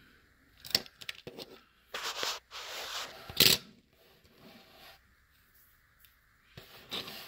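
Handling noises of a small die-cast toy car: fingers rubbing and scraping against it, a few light clicks, and one sharp click about three and a half seconds in as the car is set down on a hard surface.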